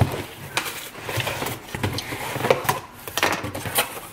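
Cardboard shipping box being opened by hand: its flaps are pulled up and folded back, with a string of irregular cardboard knocks, scrapes and rustles.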